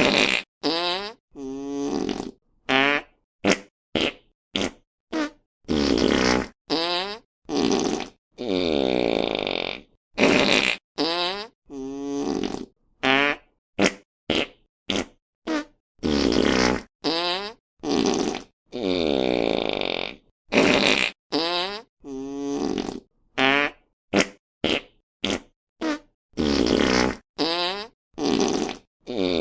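A rapid series of fart sound effects, about thirty in all, each cut off by a short silence. Some are long, low and sputtering; others are short and sharp, and many slide up or down in pitch.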